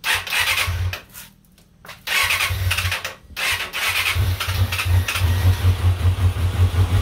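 Electric starter cranking a Kawasaki Balius's 250 cc inline-four engine in three goes. Two short cranks are followed by a longer one with an even pulsing churn, and the sound cuts off near the end.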